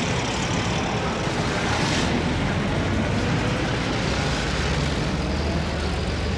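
Heavy road traffic: a steady mix of car and truck engines and tyre noise, with no let-up.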